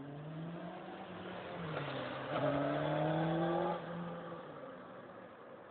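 Small engine of a child's motorbike revving, its pitch slowly rising. It is loudest just past the middle, then drops and fades as the bike rides away.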